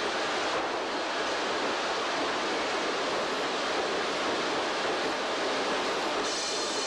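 Sawmill machinery running: a steady, even noise with no distinct tones or knocks.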